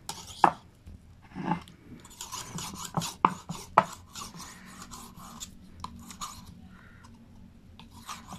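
Steel kitchen knife blade scraped back and forth over the unglazed bottom ring of an upturned ceramic mug coated in toothpaste, honing a dull edge with the toothpaste as the abrasive. A run of scraping strokes with a few sharp clicks about three seconds in, quieter for a few seconds, then picking up again near the end.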